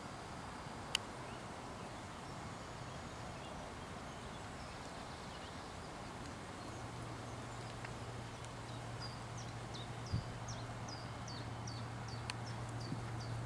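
Outdoor field ambience: a steady hiss with a sharp click about a second in, and from about two-thirds through a small bird repeating short high chirps, two or three a second. A low steady hum comes in about halfway.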